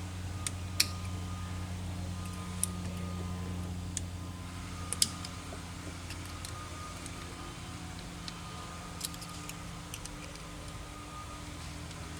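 Scattered sharp metallic clicks and taps from hand work on a fuel injection pump, as its sticking control rack is worked in and out, over a steady low hum. The loudest click comes about five seconds in.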